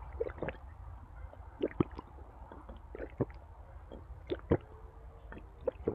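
Close-miked wet chewing and mouth smacking of a person eating, with irregular squelching clicks, the loudest a little under 2 s in and about halfway through.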